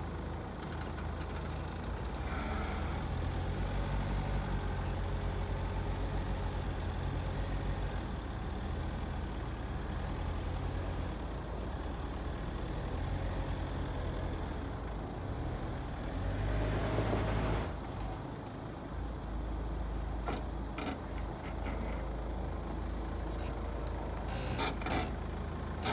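Hyundai Terracan's 2.9-litre four-cylinder diesel engine running at low revs as the SUV crawls up a steep dirt bank, with a louder surge of engine noise lasting a second or two about two-thirds of the way through.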